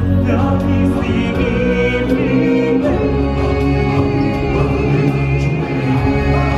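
Live stage-show music: costumed performers singing into handheld microphones with a choir and a full band backing, loud and continuous.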